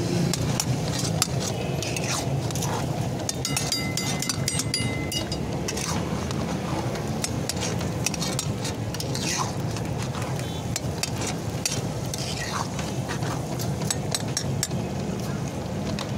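Metal spatula stirring and scraping food in a steel pan, with repeated sharp clinks against the pan over a steady low rumble.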